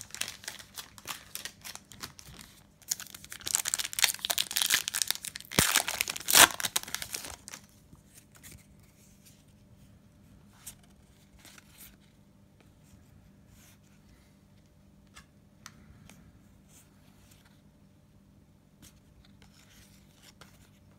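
Foil trading-card pack wrapper being torn open and crinkled, loudest in the first seven or so seconds. After that come faint, scattered ticks and flicks of cards being handled.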